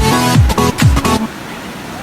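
Electronic dance music with a heavy kick drum and falling bass hits, cutting off suddenly just over a second in and leaving a steady wash of surf.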